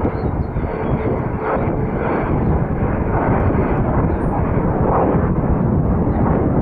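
Jet engines of a McDonnell Douglas MD-88 airliner (rear-mounted Pratt & Whitney JT8D turbofans) running at take-off power, heard from a distance as a steady, loud, rough rumble.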